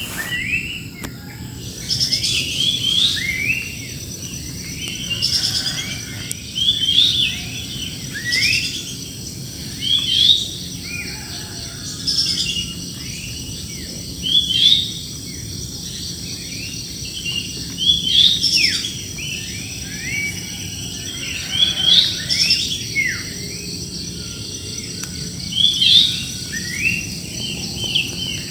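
Songbirds singing: short phrases of rising chirps repeat roughly every two seconds, over a steady high-pitched background tone.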